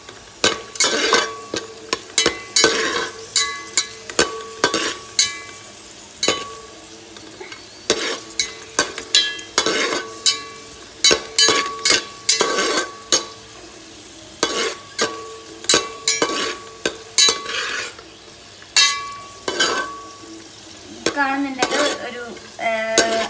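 Metal spatula scraping and knocking against a metal pot while cashews and raisins fry in ghee, in quick irregular strokes, the pot ringing after the strikes. A steady sizzle of the hot ghee runs underneath.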